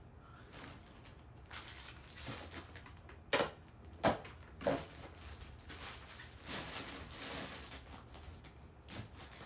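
Rustling and crinkling as baby items and their packaging are handled, with three sharp knocks in quick succession a few seconds in.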